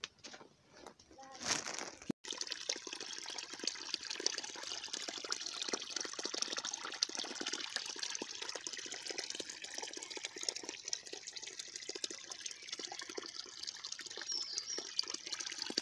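Small stream of water running and splashing steadily over stones, starting abruptly about two seconds in after a few faint rustles and steps.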